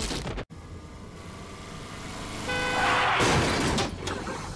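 Film soundtrack: after a sudden cut, a quiet low rumble, then a held music chord comes in about two and a half seconds in under a swelling rush of noise that peaks around three seconds. It is the sound design of a road-accident scene, a vehicle rushing in.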